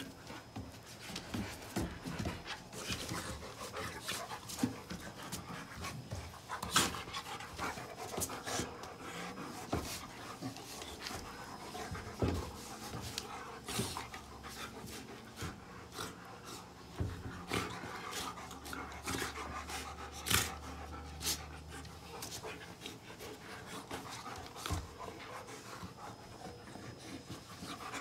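Two large dogs play-wrestling, panting hard, with scattered knocks and scrabbling of paws and bodies on wooden deck boards.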